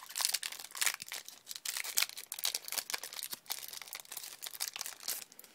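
Foil Yu-Gi-Oh booster pack wrapper being torn open and crinkled by hand: a dense, irregular crackling that stops near the end.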